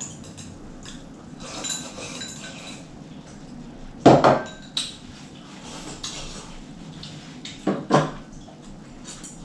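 Chopsticks and spoons clinking and tapping against ceramic bowls as people eat, with two louder knocks, about four seconds in and near the end.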